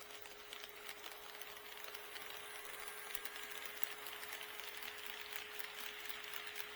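HO-scale model train running on KATO Unitrack: a rush of wheel and motor noise with quick rapid clicks, growing louder from about two seconds in, over a steady hum.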